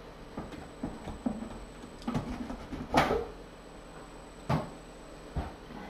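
Scattered soft knocks and rustling of someone moving about and handling things, with a sharp knock about three seconds in, another about a second and a half later, and a low thump near the end.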